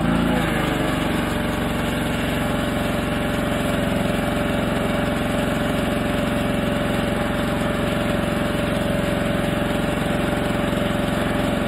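Gasoline pressure washer's engine running steadily.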